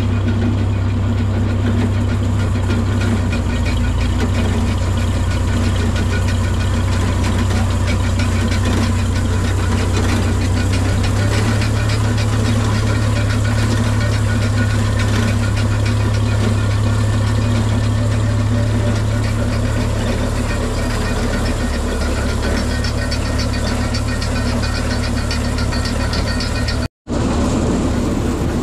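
Tractor engine running steadily under load, driving a Gehl Mix-All grinder-mixer, with the mixer's mechanical rattle over the engine hum. The engine note steps up slightly partway through, and the sound cuts out for an instant near the end.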